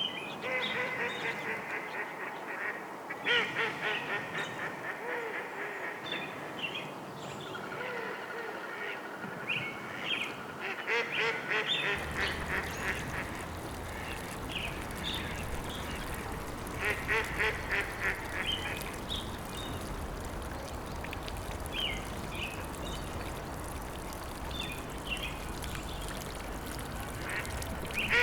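Ducks quacking in repeated bursts of quick calls. A low steady rumble joins about twelve seconds in.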